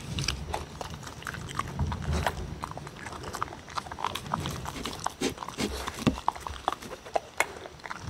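Two dogs eating from wooden bowls: wet chewing and licking, with many quick, irregular clicks of teeth and tongues against the wooden bowls.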